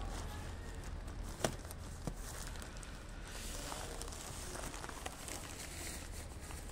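Steady low outdoor rumble with a few soft, sharp clicks and light rustling scattered through it.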